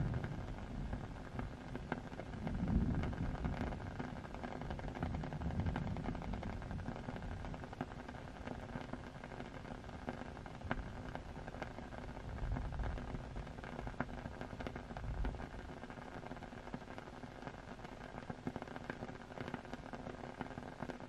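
Steady rain hiss with scattered faint crackles and soft low rumbles that swell and fade several times, the strongest about three seconds in.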